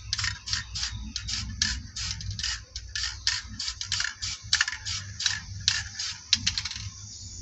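Aerosol spray paint can sprayed in rapid short bursts, about three or four quick puffs a second. Near the end the bursts give way to a fainter steady hiss.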